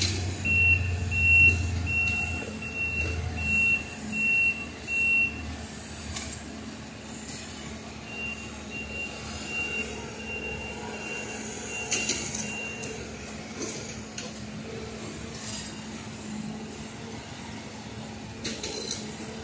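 Engine of a railroad maintenance-of-way machine running as it creeps along the track, its backup alarm beeping in a steady series: about seven loud beeps in the first five seconds, then a fainter run of beeps about eight seconds in.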